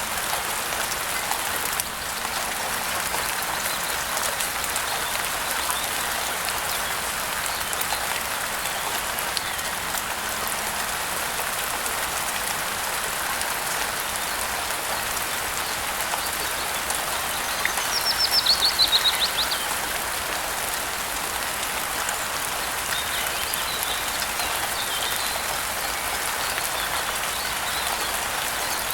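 Steady rain falling. About two-thirds of the way through, a bird gives a quick run of high chirps falling in pitch, followed a few seconds later by fainter chirps.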